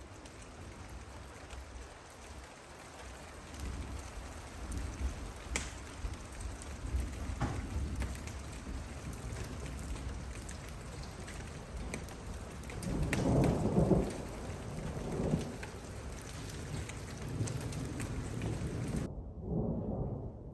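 Steady rain falling, with thunder rumbling. A louder roll of thunder swells and fades about two-thirds of the way through.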